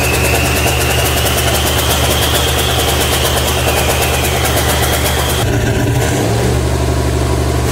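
Ford 302 small-block V8 running steadily, with the high whine of a Detroit Diesel 12.7 L semi-truck turbo spooling on it through a homemade hot side. The whine holds a fairly steady pitch, then cuts out about five and a half seconds in while the engine keeps running.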